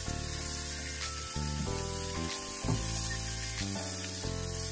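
Background music with held notes that change every second or so, over shrimp sizzling in oil in a frying pan.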